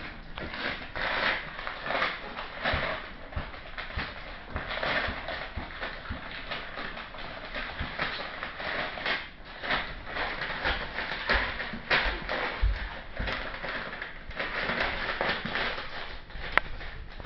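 Seven-week-old Bichon Bolognese puppies chewing and tugging at newspaper: repeated crinkling, rustling and tearing of paper in irregular bursts.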